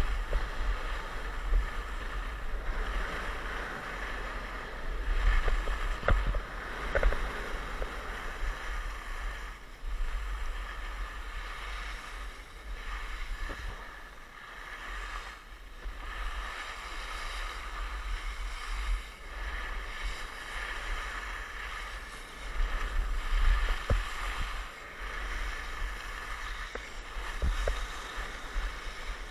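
Skis sliding and scraping over groomed snow on a downhill run, a rushing hiss that swells and fades with the turns, with wind rumbling on the microphone. A few sharp knocks come through along the way.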